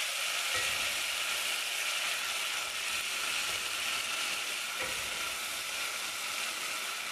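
Onions and ginger-garlic paste sizzling in hot oil in a metal pot on low heat, stirred with a wooden spoon that knocks softly against the pot a couple of times.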